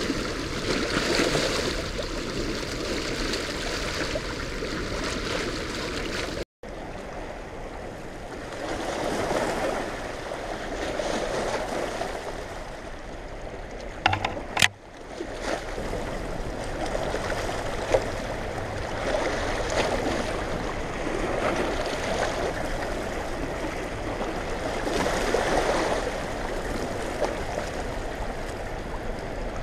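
Rushing, churning water of a dam tailrace carrying a heavy release, a steady noise with a brief break about six seconds in and a few sharp clicks near the middle.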